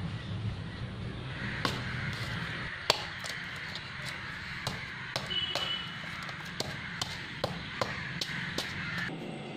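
A tender coconut being hacked open with a large chopping knife: about a dozen sharp chops at irregular intervals, starting about a second and a half in, the loudest about three seconds in.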